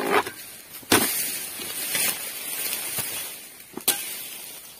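Dodos, a chisel blade on a long pole, striking into the frond bases of an oil palm: three sharp chopping strikes, at the start, about a second in and near the end. Between them a long rustling hiss of dry palm fronds and debris that fades slowly.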